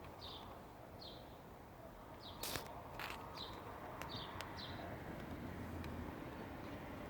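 A small bird chirping repeatedly, short high chirps about once a second, over a steady low rumble, with a few sharp clicks near the middle.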